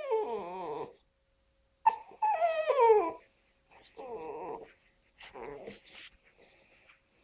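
Basset hound puppy howling: a howl trails off, falling in pitch over the first second, and about two seconds in a shorter whining howl slides downward. Two softer whimpers follow.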